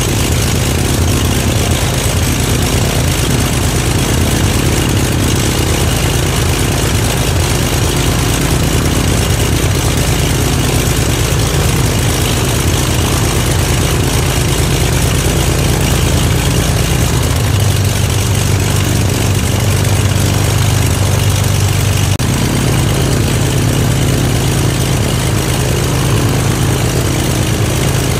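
A Corvair air-cooled flat-six aircraft engine idling steadily at about 1,000 rpm and turning the propeller on its first ground run, running smoothly. Its note shifts briefly about two-thirds of the way through.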